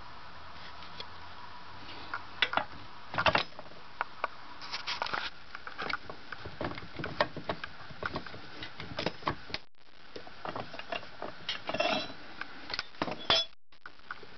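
Irregular clicks, clinks and knocks of metal tools and parts being handled on a workbench, starting about two seconds in.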